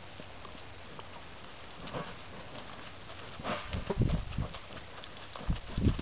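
Hoofbeats of a Tennessee Walking Horse/Spotted Saddle Horse filly stepping through a sandy arena: soft, irregular thuds and clicks that grow louder after about three seconds.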